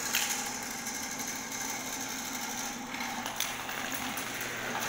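Electric drum-type drain-cleaning machine running steadily, its motor turning the steel cable in a floor drain to clear a clogged kitchen line.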